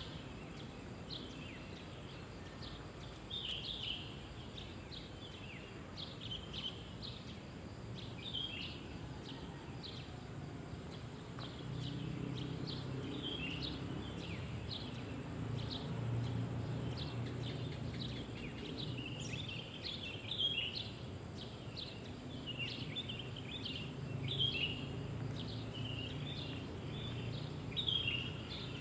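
Small birds chirping in many short, repeated calls over a steady high-pitched trill of crickets. A low background rumble comes in a little before halfway.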